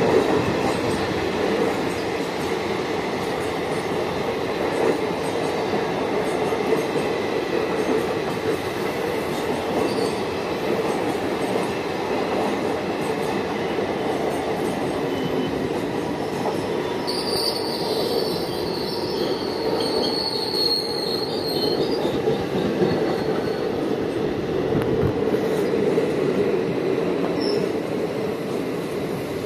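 Indian Railways express passenger coaches rolling past on the adjacent track: a steady rumble and rattle of wheels on the rails, with a high squeal for about five seconds past the middle.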